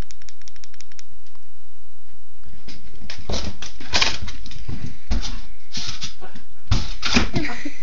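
Shiba Inu puppy scrambling and pouncing on a hardwood floor: a quick run of light claw clicks in the first second, then irregular scuffles and thumps from about two and a half seconds in.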